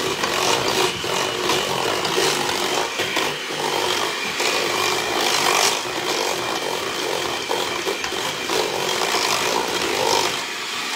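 Electric hand mixer running steadily, its beaters churning pumpkin bread batter in a stainless steel bowl.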